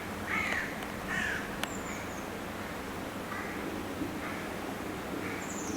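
Crows cawing: two clear caws in the first second and a half, then several fainter ones, over a steady low background hum.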